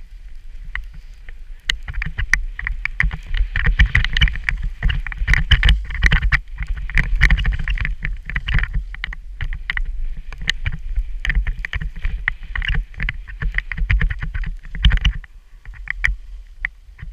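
Skis scraping and chattering over packed snow on a fast downhill run, with wind buffeting the camera microphone as a low rumble. Quieter near the end.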